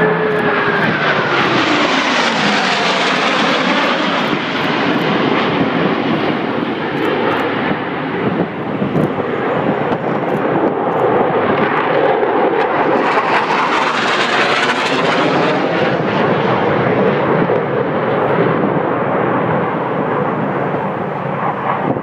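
Loud, continuous jet engine noise from the Blue Angels' F/A-18 Hornets flying over in formation and peeling off. A whine falls in pitch as the jets pass over in the first few seconds. The noise swells again about two thirds of the way through as more jets go by.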